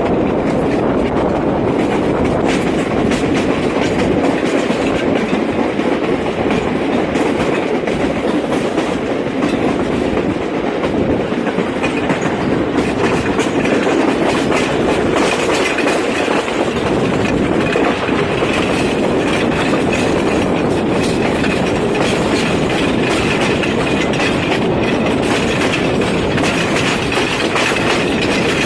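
Passenger train running: a steady rumble with wheels clicking over the rail joints. Past the halfway point a faint high whine joins in.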